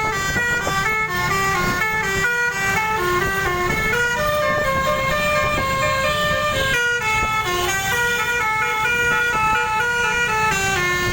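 Indonesian bus 'telolet' musical air horn (Basuri) playing a long, continuous tune: several horn tones sound together and step from note to note, with a short break about seven seconds in.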